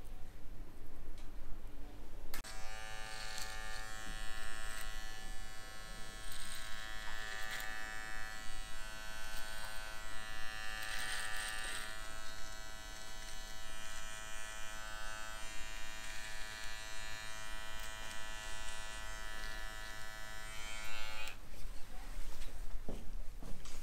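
Electric hair trimmer buzzing steadily as it trims the hair around the ear. It switches on about two seconds in and cuts off a couple of seconds before the end.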